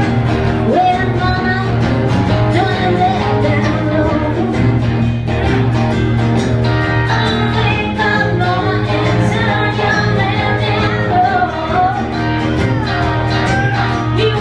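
Live blues song: a woman singing at the microphone over acoustic guitar and electric guitar.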